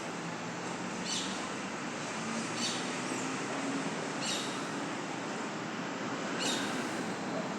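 A bird repeats a short, high call that drops in pitch, four times about every one and a half to two seconds, over a steady background hiss with a faint low hum.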